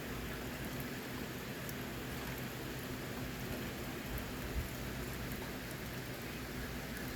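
Steady rain falling and pattering on surfaces during a passing thunderstorm, with a faint steady low hum underneath and one soft low bump about halfway through.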